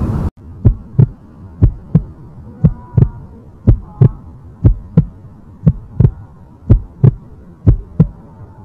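Heartbeat sound effect used for suspense: paired low thumps, lub-dub, about one beat a second, steady throughout, over a faint hum.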